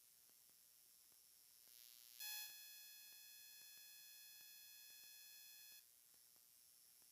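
Near silence broken by a steady high-pitched tone that starts about two seconds in, holds level for about three and a half seconds, then cuts off.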